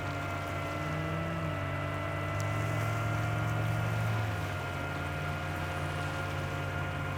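Steady motor hum made of several held tones, with slight shifts in pitch; it grows louder for about two seconds in the middle, then settles back.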